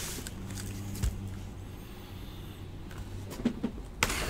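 Quiet room noise with a faint steady hum, a single light knock about a second in, and a rustling hiss starting near the end.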